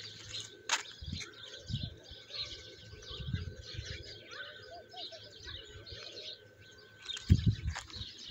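Many small birds chirping and twittering steadily, with scattered low dull thuds, the loudest a cluster about seven seconds in.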